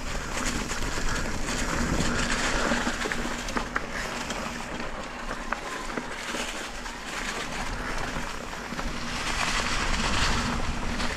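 E-mountain bike riding dirt singletrack: tyres rolling over dry dirt and crackly leaves, with small rattles and clicks from the bike and wind noise. There are louder rushes about two seconds in and again near the end. Under it is a faint steady hum from the e-bike's motor, which drops out in the middle.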